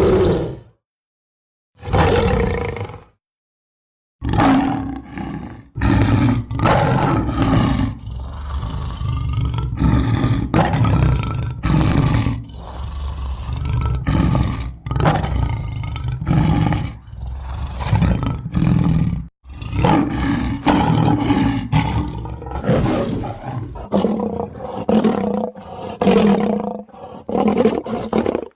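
A string of animal roar and growl sound effects, short loud clips spliced one after another with abrupt starts and stops and two brief silent gaps in the first few seconds.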